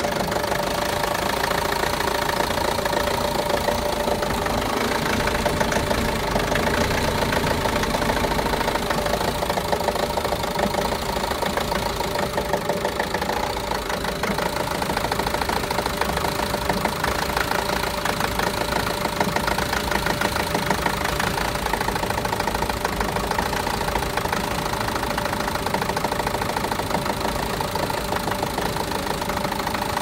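Renault Master van's engine running steadily at idle with a misfire, logged as fault code DF065, that four new injectors have not cured.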